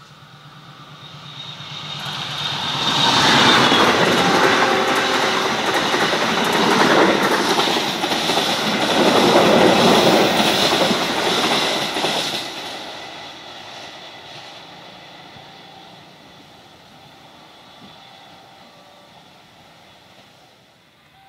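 Argo Parahyangan locomotive-hauled passenger train passing close by. Its wheels clatter over the rails, building from about two seconds in, loud for some ten seconds as the coaches go by, then fading steadily away.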